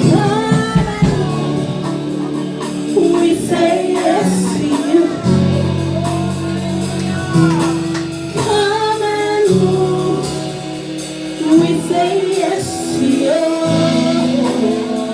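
Live gospel worship music: voices singing over a band, with sustained low notes from the instruments beneath.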